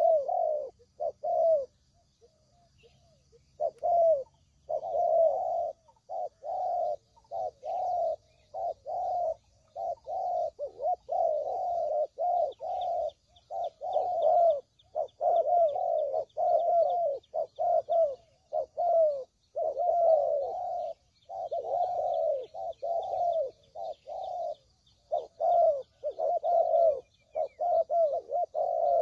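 Spotted doves cooing: short coos follow one another closely and almost continuously, with a pause of about two seconds near the start. The recording is a lure call for attracting tekukur. Faint high chirping of small birds sits behind.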